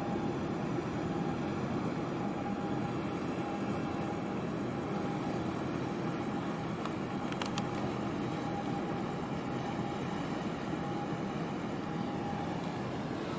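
Steady low rumble of a large container ship's engine and machinery as it passes close by, with a faint steady whine throughout and a couple of brief clicks about halfway.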